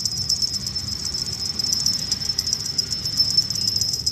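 A pair of 1 cm metal jingle bells on a cat collar shaken steadily by hand, giving a fast, continuous, high-pitched jingle.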